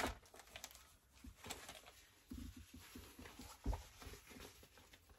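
Quiet handling of unboxed items and packaging: faint rustles and light taps, with a soft knock a little past halfway.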